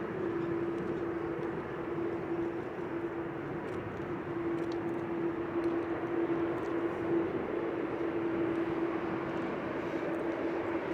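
Jet engines of a Boeing 787-8 airliner running, a steady rushing noise with a constant droning tone.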